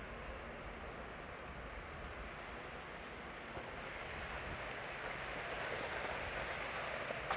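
City street noise with the hiss of tyres on a wet, slushy street swelling as a vehicle passes, loudest a few seconds in and easing near the end.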